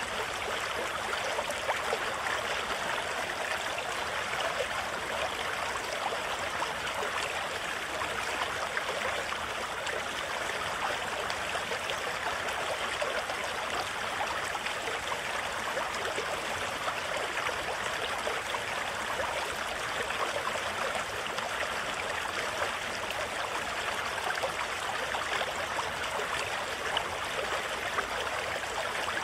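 River water rushing over shallow, rocky rapids: a steady, even rush that holds without change.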